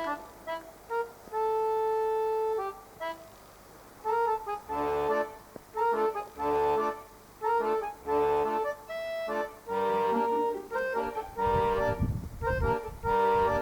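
Background music: a melody of held notes over low bass chords that repeat about every second and a half, with a brief low rumble near the end.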